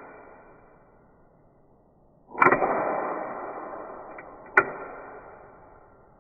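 Marushin S&W M10 gas revolver mechanism being worked: a sharp metallic click with a whirring hiss that slowly fades, and a second sharp click about two seconds later.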